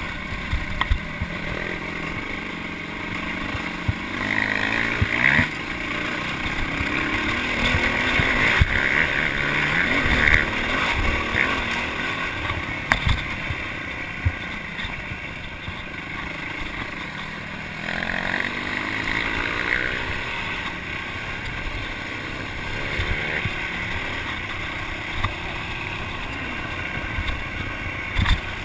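Dirt bike engine heard from on the bike while riding, its pitch rising and falling as the throttle opens and closes. Sharp knocks now and then from the bike hitting bumps on the trail.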